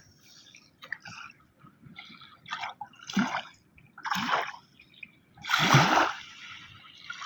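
River water splashing: a series of separate splashes a second or so apart, the biggest near the end.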